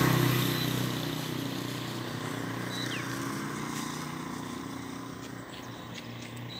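A motor vehicle passing close by and fading away, its low engine hum loudest at the start and dying down over several seconds.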